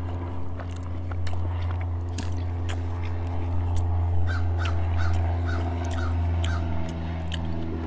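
A crow cawing about seven times in quick, even succession, a little past halfway through, over close-up chewing and mouth clicks of someone eating a soft taco.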